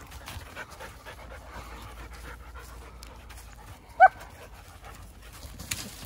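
Dogs panting while playing, with one short, high yelp about four seconds in.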